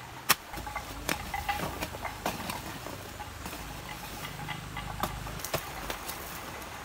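Hoe chopping into hard clay soil: about half a dozen sharp strikes at uneven intervals, with the crumble of loosened earth between them.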